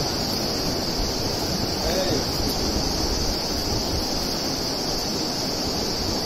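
Steady wind rumbling on the microphone, with a constant high-pitched drone of insects over it.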